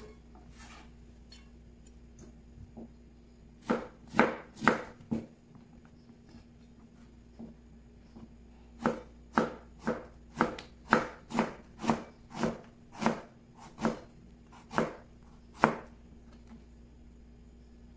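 Kitchen knife chopping vegetables on a cutting board: a few strokes about four seconds in, then a steady run of about a dozen cuts, roughly two a second.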